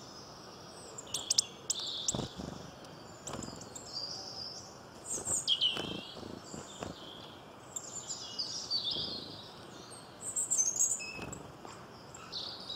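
Wild birds chirping and calling in short, scattered phrases, with a few soft taps in between.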